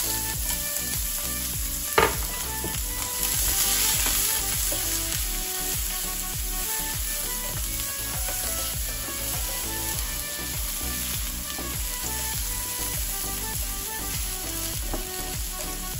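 Chopped onion and garlic sizzling in hot olive oil in a nonstick frying pan, stirred with a silicone spatula, with a steady frying hiss. A single sharp knock about two seconds in.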